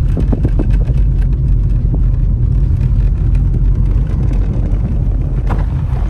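Car driving over a rough unpaved track: a steady low rumble with many small knocks and rattles from the bumps.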